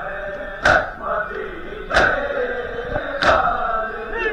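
Large crowd of mourners doing matam, beating their chests with their hands in unison: a loud slap about every 1.3 seconds, three in all, with voices chanting between the strikes.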